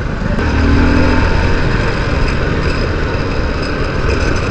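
Motorcycle engine running under way, heard from the rider's own bike, with steady road and traffic noise. A louder, deeper engine drone comes in briefly about half a second in, then the sound settles into a steady run.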